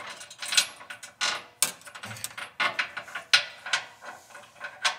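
Metal hardware clinking and tapping against the pickup's frame as a mounting bolt is fed up through the frame rail on a feed wire: irregular sharp metallic clicks, about two a second.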